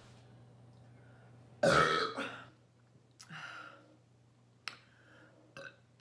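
A woman's loud burp about one and a half seconds in, brought up by gulping fizzy ginger ale, followed a second later by a softer second burp.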